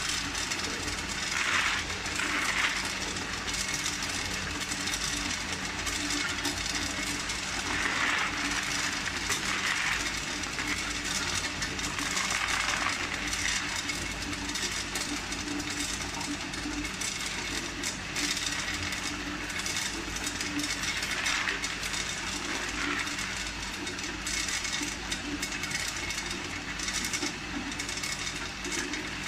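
Tube ice machine harvesting: freshly cut ice tubes clattering down the stainless discharge chute into a plastic basin, swelling in surges several times, over the steady hum of the running machine.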